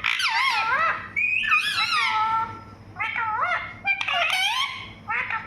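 A parrot giving a run of warbling, rapidly wavering calls, with short breaks about a second in and around three and four seconds in.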